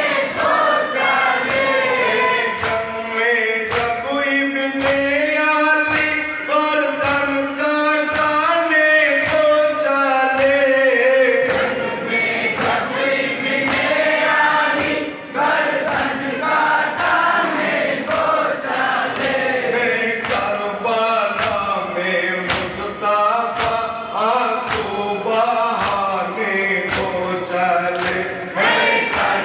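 A group chanting a Muharram lament (noha) together, with matam: hands striking chests in unison in a steady beat of roughly one slap every three-quarters of a second.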